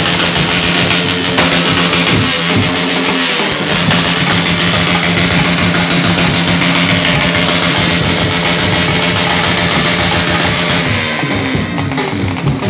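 Background music with guitar and drums, loud and steady throughout.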